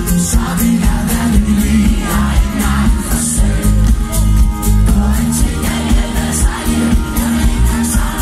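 Live pop band playing with a male lead singer: his voice rides over drums, bass, guitars and keyboards, with a steady beat and heavy bass.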